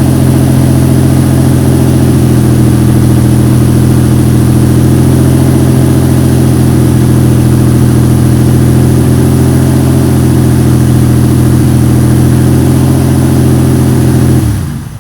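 Lamborghini Diablo's V12 engine idling steadily and loudly, then switched off near the end, its sound dying away within half a second.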